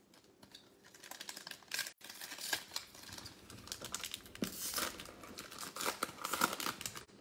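Foil wrapper of a trading-card pack crinkling and tearing as it is ripped open by hand. It starts about a second in and goes on as a dense run of crackles.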